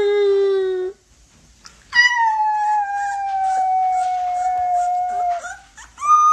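A puppy howling: one long howl starts about two seconds in and slides slowly down in pitch for about three and a half seconds, and another higher howl begins near the end. Before it, a lower human howl, the puppy's howling lesson, ends about a second in.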